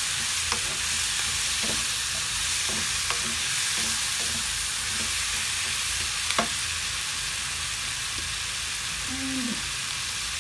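Chicken, tomato and onion sizzling in hot oil in a pan, a steady hiss, with a few sharp clicks of a cooking utensil against the pan as the food is stirred.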